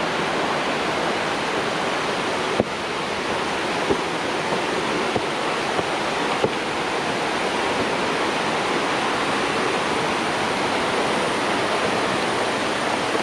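Steady rushing noise of a large waterfall, even and unbroken, with a few faint clicks along the way.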